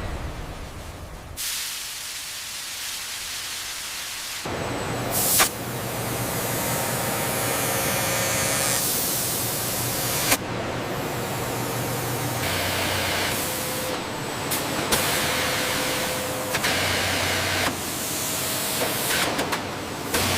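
Hissing, rushing air-like factory noise that changes abruptly every few seconds. Some stretches carry a low steady machine hum, and there is a sharp click about five seconds in and another about ten seconds in.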